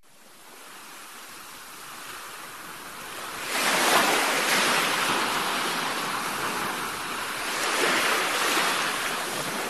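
Ocean surf: the steady hiss of breaking waves washing in, growing from faint to loud, with a strong surge about three and a half seconds in and another swell about eight seconds in.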